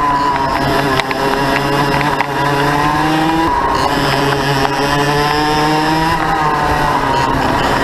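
Onboard sound of a two-stroke racing kart engine at full throttle, its pitch climbing steadily. It drops sharply about three and a half seconds in as the driver lifts off for a corner, then climbs again, with a brief dip near six seconds.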